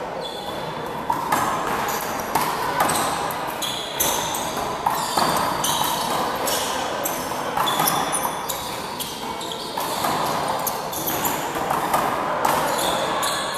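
Handball rally: the small rubber ball slaps sharply off hands, wall and floor at irregular intervals, about every one to two seconds, with short squeaks of sneakers on the court floor.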